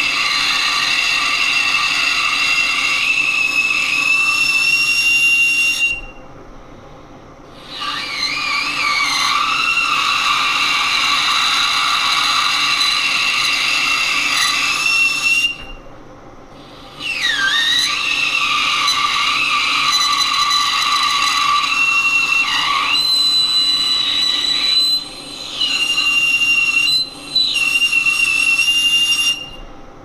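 Carbide lathe tool cutting a spinning steel GM wheel hub with a loud, high-pitched screech that holds for several seconds at a time and breaks off a few times when the cut stops. The carbide inserts are chipping and not holding up in this cut.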